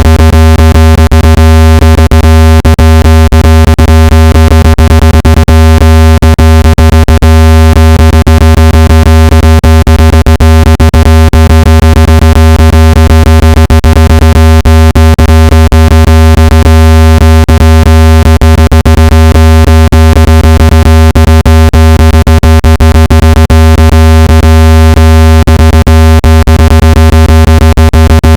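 Electronic speaker-cleaning tone: a loud, steady low hum with a stack of higher overtones, peppered with irregular crackling clicks, played to vibrate dust and moisture out of a phone speaker.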